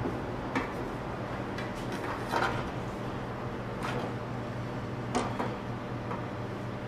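A few sharp knocks and clicks of a serrated bread knife against a wooden cutting board as fresh mozzarella is sliced and the knife is set down, over a steady background hum.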